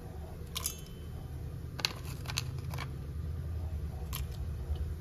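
Whole spices being handled and dropped into a steel mixer-grinder jar: about five short, light clicks and taps spread through, over a steady low hum.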